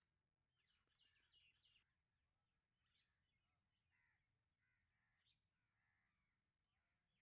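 Faint bird calls: a quick cluster of short chirping calls about a second in, then scattered single calls.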